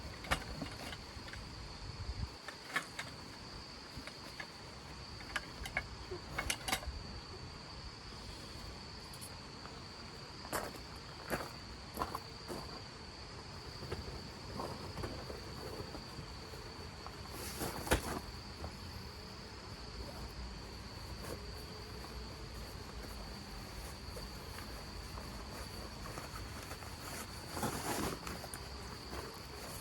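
A cricket trilling steadily on one high pitch, with scattered sharp taps and clicks, the loudest about eighteen seconds in and another cluster near the end.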